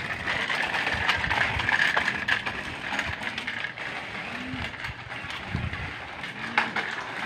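Child's bicycle with training wheels rolling over a concrete path, its small wheels rattling and clicking; it gets somewhat fainter after about three seconds.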